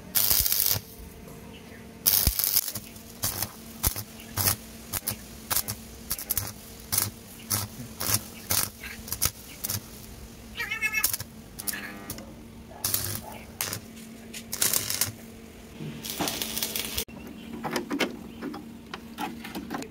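Stick arc welding on rusted sheet steel: a string of short crackling, hissing bursts of uneven length as the electrode arc is struck and broken again and again, over a steady low hum.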